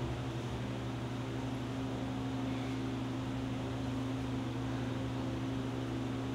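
Steady low hum with a constant hiss, the level unchanging throughout.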